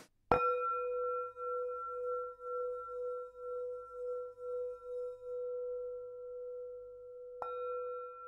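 A singing bowl struck once just after the start and again about seven seconds later. Each strike rings on in a long, steady tone whose low note pulses slowly.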